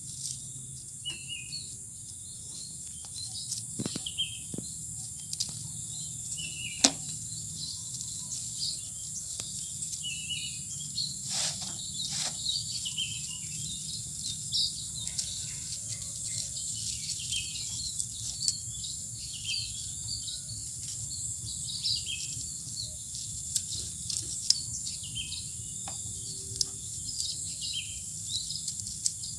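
Steady high-pitched insect drone with birds chirping again and again, and a few sharp clicks, the loudest about seven seconds in.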